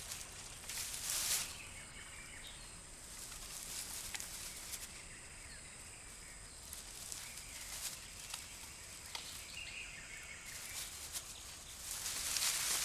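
Forest ambience: a steady high-pitched buzz that drops out and returns twice, with a brief rustle about a second in and another near the end, and a few faint clicks.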